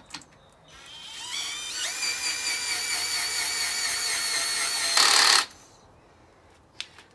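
Cordless drill driving a screw into the bench's wooden frame: the motor whines up to speed about a second in, runs steadily for about three seconds, then gives a short, louder rattle and stops, leaving the screw not totally in.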